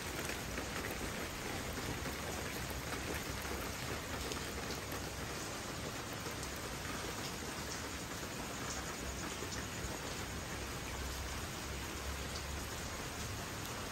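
Rain falling steadily on an outdoor swimming pool and the wet deck around it: an even hiss with faint scattered drop ticks.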